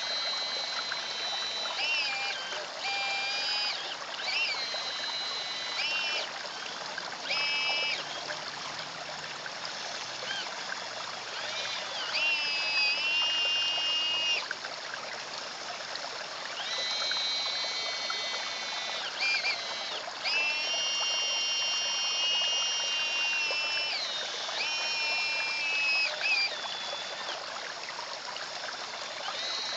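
Steady trickle of water running into a garden pond, with the high whine of an R/C CAT excavator's motors starting and stopping about ten times, stepping up and down in pitch as the arm and cab move.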